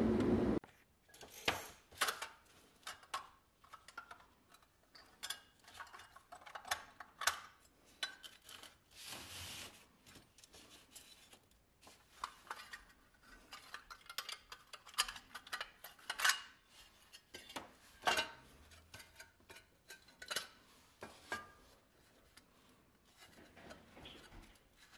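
A small power tool runs and cuts off about half a second in. Then scattered metallic clinks, taps and rattles of tin and die-cast toy truck parts being handled and set down on a workbench, with a brief rubbing sound near the middle.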